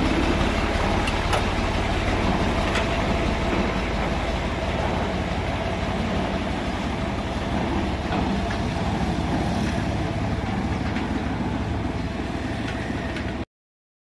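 Fiat 480 tractor's three-cylinder diesel engine running as the tractor drives off, steady throughout, then cutting off abruptly near the end.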